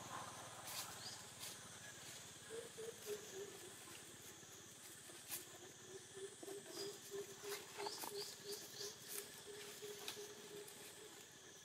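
Quiet forest-floor ambience: dry leaf litter and twigs crackling in scattered clicks as long-tailed macaques move through it. Under it run a few faint high chirps and, from a couple of seconds in, a low pulsing note repeating several times a second.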